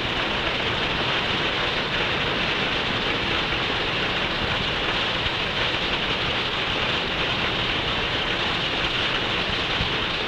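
Dozens of typewriters clattering at once in one room, a dense, steady patter of keystrokes: a whole class typing a timed speed test.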